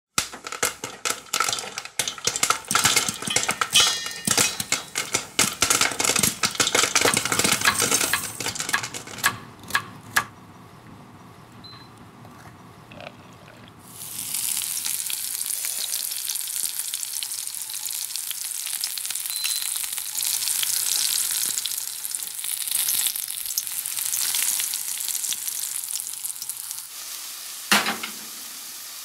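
Food and oil frying in a stainless steel frying pan. For the first third there is dense crackling and clicking. After a quieter stretch, a steady sizzle comes in about halfway through. Near the end there is a single knock of the pan being set down.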